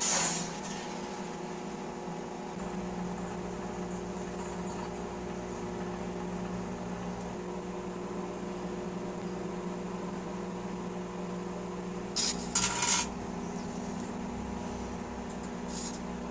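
Microwave oven running with a steady hum. A short sharp noise comes right at the start, a cluster of short sharp noises about twelve seconds in, and another near the end.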